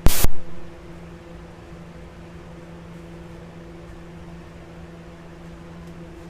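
A sudden loud knock lasting a fraction of a second, then a steady low mechanical hum.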